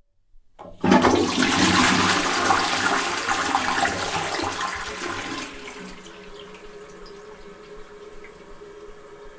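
Toilet cistern flushing: a short click, then a loud rush of water that slowly dies away. After about five seconds it drops to a quieter, steady running sound with a faint tone.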